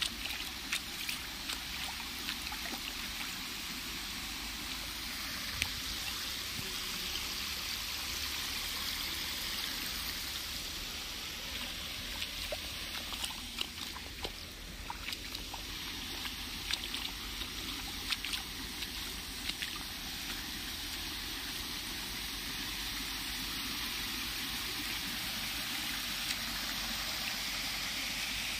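Shallow water trickling and running over a low concrete weir and between stones, a steady hiss of flowing water with a few faint clicks.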